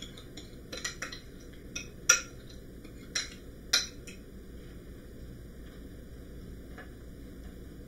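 A metal fork clinking and scraping against a ceramic bowl and pie plate while buttery cookie crumbs are scraped out and pressed down. About six sharp clinks come in the first four seconds, with a few faint taps later.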